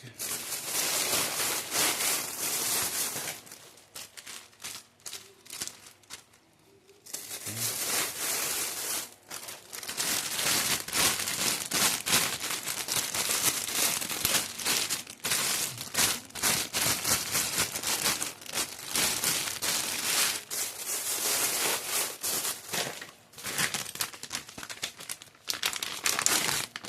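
Plastic snack wrappers and bags being crumpled and handled: a dense crinkling. It drops away for a few seconds about four seconds in, then resumes.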